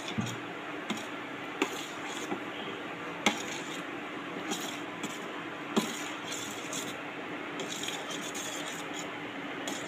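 A ladle stirring thick semiya payasam in a stainless steel pan, with a few sharp clinks of the ladle against the pan, the loudest about three seconds in, over a steady faint hum.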